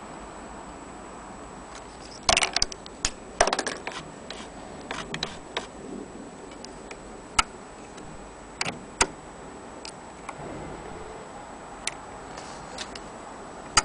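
Irregular clicks and clacks of metal parts on an 1890 Singer Model 12K hand-crank sewing machine being handled by fingers: a quick cluster about two to four seconds in, then single clicks spread through the rest, over a steady hiss.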